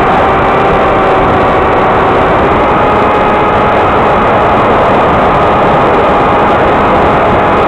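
Loud, steady, harsh noise from the FPV video recorder's audio track, a garbled hiss that cuts off sharply above the mid-range, with a few faint steady tones running through it; the recording's sound came out wrong and is very annoying, not the clean sound of the flight.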